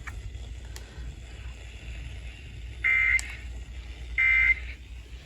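SAME end-of-message data bursts from an Emergency Alert System broadcast: two short buzzy digital bursts about a second apart, starting about three seconds in, signalling the end of the warning message.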